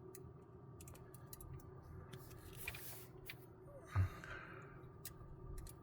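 Faint clicks and a short scrape of a small screwdriver working at a stripped flat-head screw on a 3D printer's hotend, with a soft knock about four seconds in. The screw head is rounded out inside, so the tool turns without gripping.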